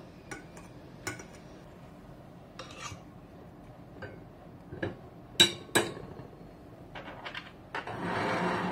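Glassware being handled: a glass separatory funnel and its glass stopper clinking and knocking, with rubber gloves rubbing on the glass. Scattered light clicks, two sharp clinks about five and a half seconds in, and a short rush of rubbing noise near the end.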